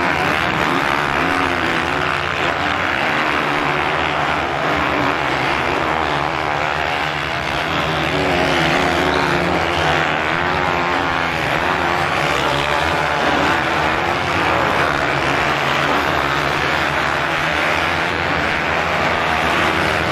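A field of many motocross bikes running at high revs together: a dense, continuous engine buzz whose pitch wavers up and down as the riders work their throttles on the sand.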